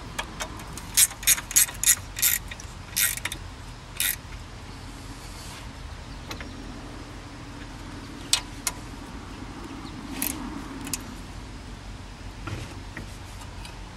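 Ratchet wrench clicking as a brake caliper's mounting bolts are tightened: a quick run of sharp clicks in the first few seconds, then a few scattered clicks later.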